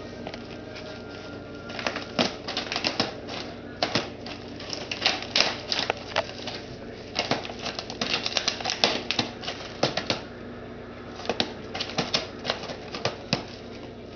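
Plastic cat-food bag crinkling and crackling in quick, irregular bursts as a cat tries to get into it, with a short lull partway through.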